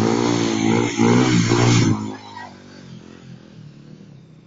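Bajaj Pulsar motorcycle engine revving loudly while the rider holds a wheelie, its pitch wavering with the throttle, then dropping much quieter about two seconds in and tailing off.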